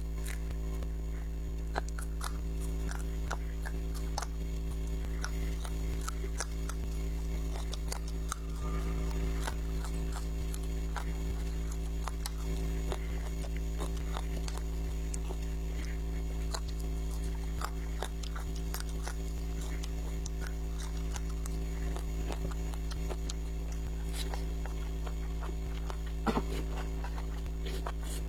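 Close-miked eating: many short wet clicks and crunches of chewing over a steady low electrical hum, with one louder click near the end.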